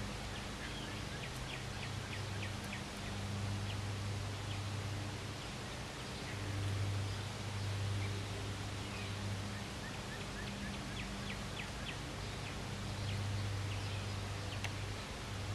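Small birds chirping in quick runs of short, high notes, over a steady outdoor hiss and an on-and-off low hum.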